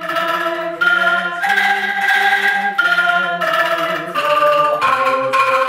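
Angklung ensemble playing: many bamboo angklung, each sounding a single note as it is shaken, join into held chords of a tune that change about once a second.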